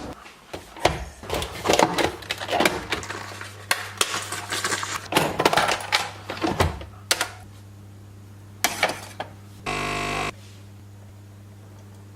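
Dishes, cups and containers clattering and knocking as picnic things are handled and packed, over a steady low hum. Just before ten seconds comes a short, loud buzzing tone, like an appliance buzzer.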